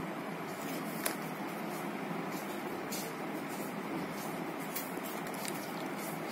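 Plastic set squares and a pencil handled on drawing paper: a light tap about a second in and a few faint brief scrapes, over a steady background hiss.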